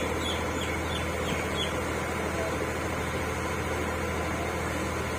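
A small motorboat's engine running steadily as the boat cruises, a low even hum under a haze of noise. A few short high chirps sound during the first two seconds.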